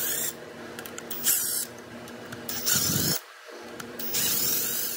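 Cordless impact tool spinning out already-loosened cam plate bolts in four short bursts, its motor whine rising and falling with each.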